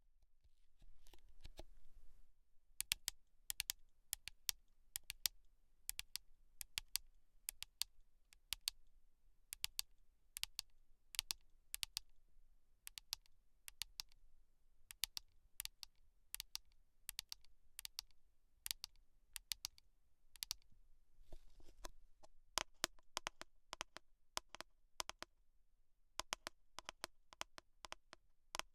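Close-miked ASMR clicks and taps, sharp and irregular at about two to three a second, with a short soft brushing hiss at the start and again about two-thirds of the way through.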